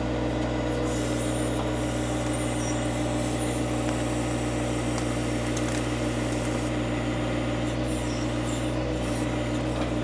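John Deere 1025R sub-compact tractor's diesel engine running steadily below full throttle, working under load as the backhoe pushes against a tree.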